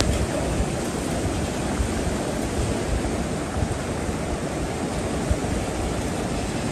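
Muddy floodwater rushing past in a fast torrent, a steady, even rush of water with no letup.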